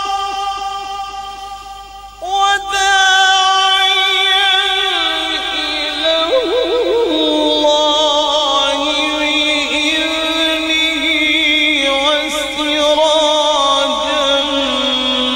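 Male qari reciting the Quran in a slow, melodic tajweed style into a microphone. A long held note fades out, and about two seconds in a new phrase begins, with drawn-out notes and rippling melodic ornaments.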